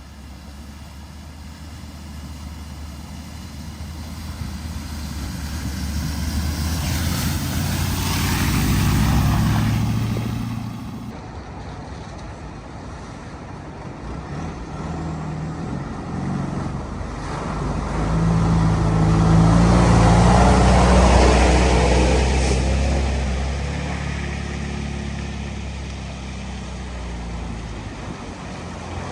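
Vehicles driving through floodwater: engines running under a rush of water, in two passes that each build up and fade, the louder one about twenty seconds in.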